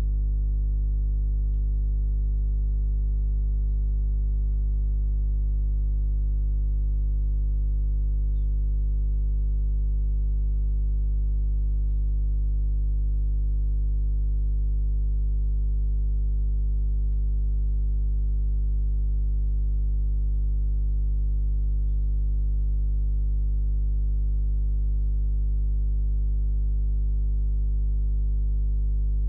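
Loud, steady electrical mains hum with a buzzy stack of overtones, the sign of an electrical interference or grounding fault in the audio chain.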